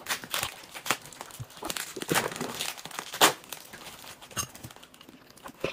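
Packaging crinkling and tearing in irregular crackly bursts as a heavily wrapped parcel is unpacked by hand, loudest about three seconds in.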